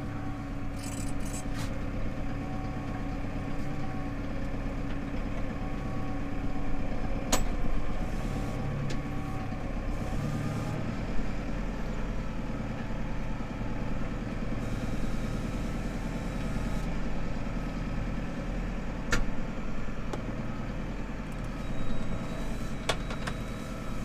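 Tractor engine running steadily under load, pulling a mounted reversible plough through the soil, with a few sharp clicks or knocks.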